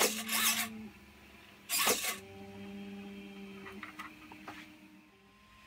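Hobby servo whirring as it swings a 3D-printed R2-D2 side door shut, with a brief knock about two seconds in, then a faint steady servo hum with a few small ticks.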